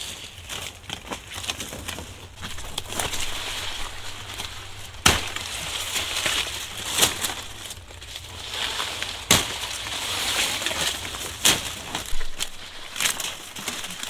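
Sugar cane stalks being cut by hand: several sharp cracks, about one every two seconds, over the dry crackling rustle of cane leaves being pushed aside and stripped.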